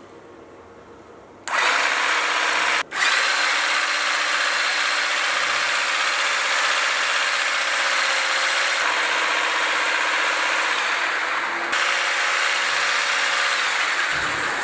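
Zanon Karbonium EVO AL K battery olive harvester switched on: the 12 V electric motor in its head buzzes steadily as it shakes the carbon-fibre rods. It starts about a second and a half in and cuts out for an instant a little later before running on.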